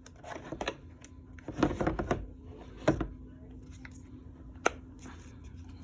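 Plastic clicks and rattles of a cordless ratchet and its 12-volt battery pack being handled, with a few sharp snaps, over a faint steady hum.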